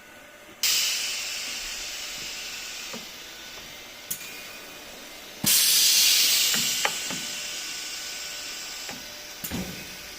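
Compressed air hissing out of the Elumatec ZS 720 LV plastic welding machine's pneumatics: two sudden loud bursts about five seconds apart, each fading away over a couple of seconds, with mechanical clicks and knocks from the machine between them and near the end.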